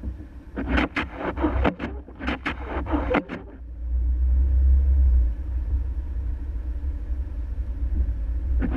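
Car driving on a snowy street: a steady low rumble of engine and road noise that grows louder about four seconds in. Over the first three seconds a run of short, sharp sounds rises above it.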